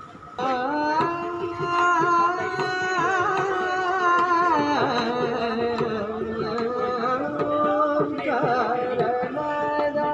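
Carnatic-style Indian classical music: a melody of held notes that slide and bend between pitches, which grows louder about half a second in.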